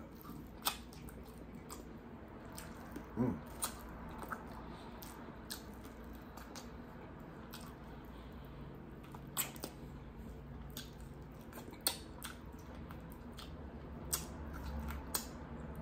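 Close-miked eating of sesame chicken wings: chewing and mouth smacks heard as scattered wet clicks and squishes at an irregular pace, with a brief sound from the voice about three seconds in.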